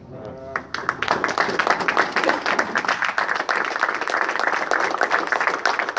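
Audience applauding: dense clapping that starts about half a second in and holds steady.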